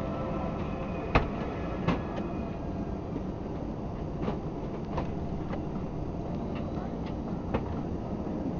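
Cabin noise of an Airbus A320 taxiing: a steady low rumble of engines and rolling. About five short, irregular clunks come over it, the loudest about a second in.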